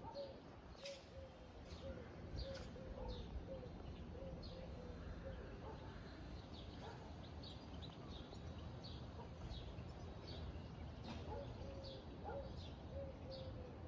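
Birds calling outdoors: many short, high, falling chirps, with runs of a lower short note repeated about twice a second, over a faint low rumble.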